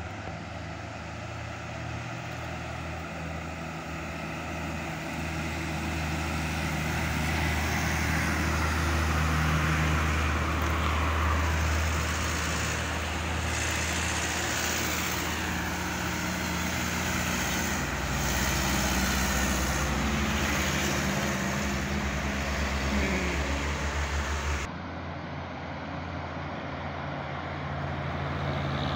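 Diesel engine of a heavily loaded truck running under load as it passes close by, growing louder over the first several seconds and staying loud. It cuts off abruptly near the end, leaving quieter road traffic.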